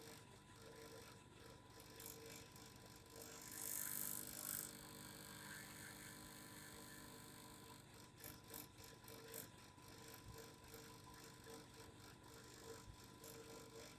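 Faint vibrating hum from a small device, with a steady tone and a second tone pulsing on and off. A brief hiss comes about four seconds in, and a run of light clicks comes around eight to nine seconds.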